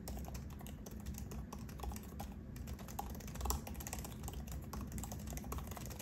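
Fast touch typing on an M2 MacBook Air's built-in Magic Keyboard, its scissor-switch keys giving a continuous run of quiet clicks.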